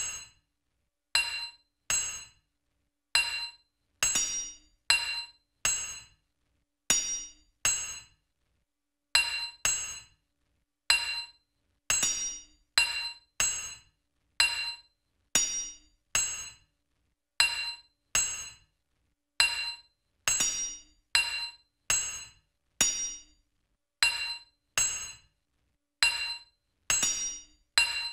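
Sharp, ringing metallic clinks struck one at a time, one or two a second at an uneven pace, each dying away quickly with dead silence between: a sparse percussive track of struck pings.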